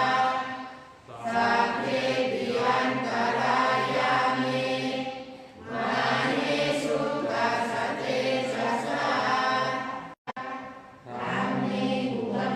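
A group of voices chanting Pali verses together in a steady, drawn-out monotone, part of the Thai Buddhist evening chanting. The long phrases are broken by short breath pauses about a second, five and a half seconds and ten seconds in.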